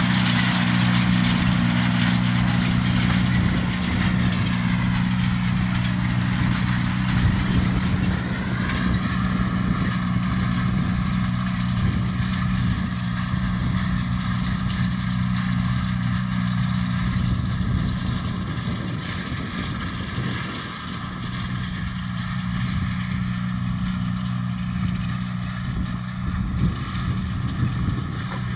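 Tractor diesel engine running steadily as it pulls a mounted seed drill through tilled soil. A thin, steady higher whine joins the engine about a third of the way through.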